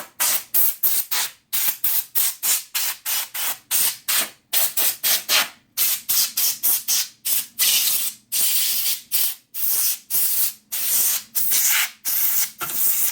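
Can of compressed-air duster sprayed in rapid short bursts, about three a second, with a few longer blasts past the middle, blowing dust out of a laptop's internals.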